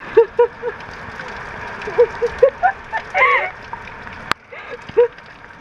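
A woman laughing in short high-pitched bursts over the steady hiss of heavy rain, with one sharp click partway through.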